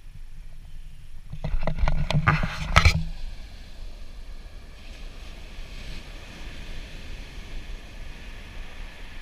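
Wind rumbling on the microphone over the hiss of surf, with a burst of knocks and rubbing from about one and a half to three seconds in.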